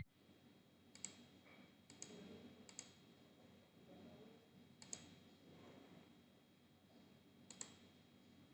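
Faint computer mouse clicks, about five, some in quick double pairs, spaced a second or more apart while slides are edited in PowerPoint.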